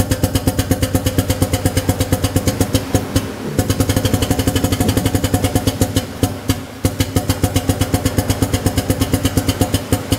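Air-powered hydraulic drive of a pneumatic drum tipper running in rapid even pulses, about six a second, as it rotates a clamped drum to pour. It breaks off briefly about three seconds in and again about six and a half seconds in as the control is let off and worked again.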